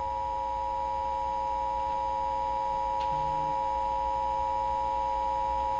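Emergency Alert System attention signal: the two-tone alarm of 853 and 960 Hz sounding together, held steady, announcing an emergency alert, here a flash flood warning.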